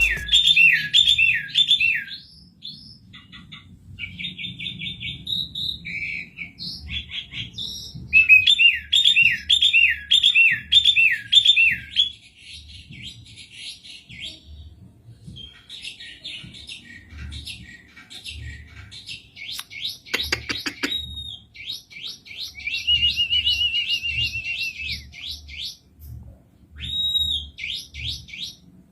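Asian pied starling singing a varied song: runs of loud, repeated whistles that sweep downward, broken by fast chattering note series and a few longer held notes. A brief burst of sharp clicks comes about twenty seconds in.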